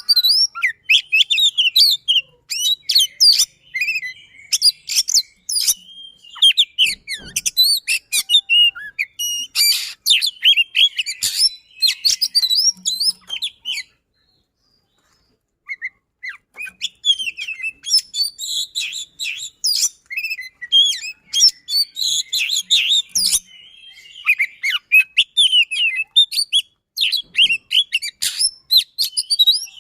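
Oriental magpie-robin singing a fast, densely packed song of rolling trills and sharp shot-like notes. It breaks off for about a second and a half midway, then goes on.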